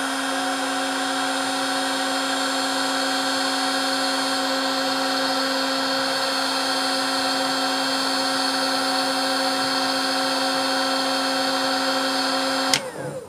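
Ryobi R18HG-0 18 V cordless heat gun running: a steady motor whine over a rush of air as it blows on heat-shrink tubing, cutting off suddenly near the end.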